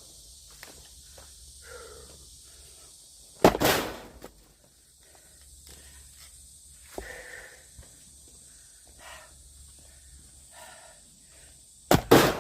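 Axe splitting firewood: two heavy sharp blows, one about three and a half seconds in and another near the end, with lighter knocks of wood between.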